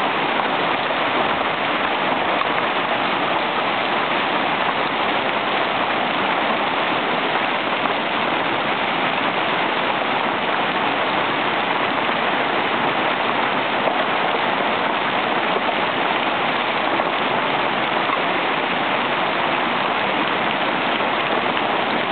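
Marble-sized hailstones falling hard on pavement, lawn and trees: a dense, steady hiss of countless small impacts.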